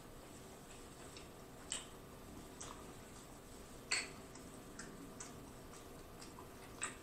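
A person chewing food with the mouth closed, giving irregular wet mouth clicks and smacks, the loudest about four seconds in.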